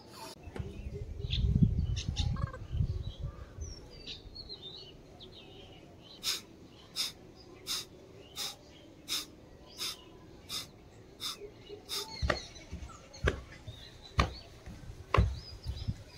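A man doing pranayama breathing: a low rumble in the first few seconds, then a steady series of short, sharp exhalations through the nose about 0.7 s apart. Near the end they slow to about one a second and become heavier.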